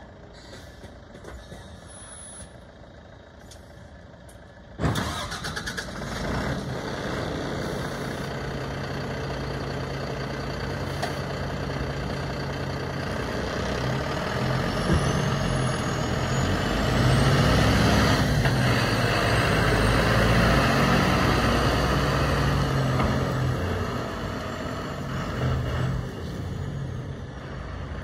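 Iveco Stralis AD260S33 refuse truck's six-cylinder diesel cranks and fires about five seconds in, then runs at a steady idle. Later it grows louder as the truck pulls away, easing off near the end.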